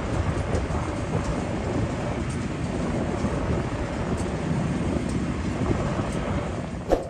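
Jet airliner's engines at takeoff power: a steady, heavy low rumble as a twin-engine widebody climbs away from the runway. A short knock comes near the end, then the sound cuts off.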